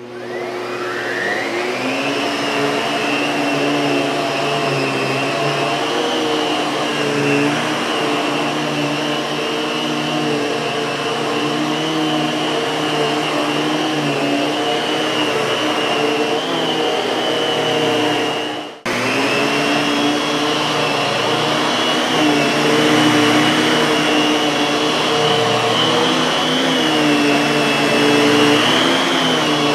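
Miele Twist upright vacuum cleaner switched on: its motor spins up with a rising whine over the first couple of seconds, then runs steadily. Its pitch wavers slightly as it is used, with a brief drop-out about two-thirds of the way through.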